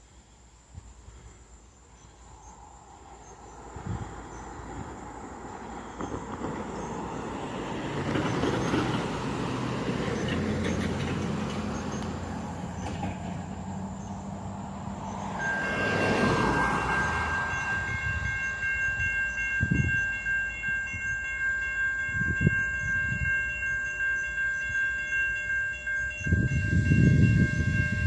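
A low rumble with a steady engine drone builds over the first half as a CSX freight train approaches. Just past halfway a railroad crossing's warning bell starts ringing in steady repeated tones and keeps going, with a few low thumps later on.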